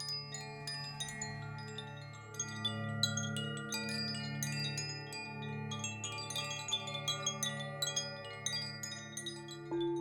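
Tuned wind chimes tinkling in a dense, irregular stream of bright ringing strikes over a low, slowly pulsing sustained drone. Just before the end a new, lower tone is struck and rings on.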